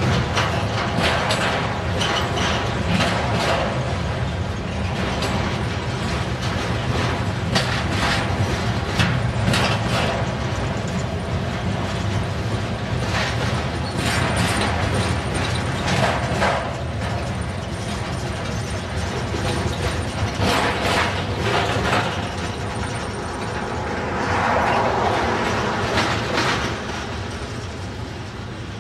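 Freight train flatcars rolling past close by: steady rumble of steel wheels on rail with clicking and rattling from the cars, easing a little near the end as the last cars go by.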